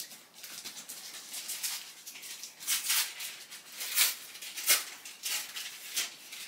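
Thin plastic packaging bag crinkling and rustling in irregular sharp crackles as it is handled and opened to take out a wooden tablet stand. The loudest crackles come in the second half.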